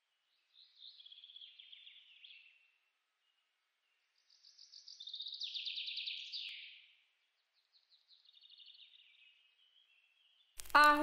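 Songbird singing three short, rapid trilling phrases separated by silent pauses, the middle phrase the loudest. Music starts suddenly just before the end.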